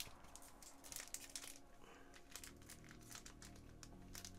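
Faint crinkling of plastic packaging with many light ticks as trading cards and their packs are handled.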